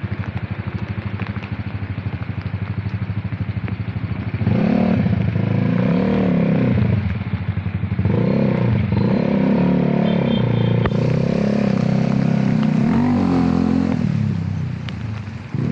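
Motorcycle engine close by, idling with a fast low putter, then from about four seconds in revving up and pulling away, its pitch rising and dipping several times before easing off near the end.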